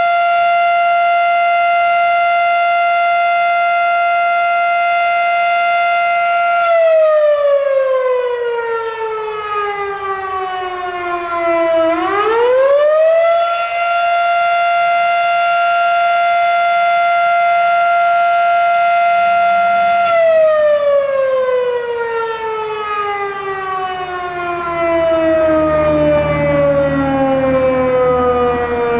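Fire station siren sounding a fire call: a steady high wail that slides down in pitch, winds back up to the same note and holds, then winds slowly down near the end.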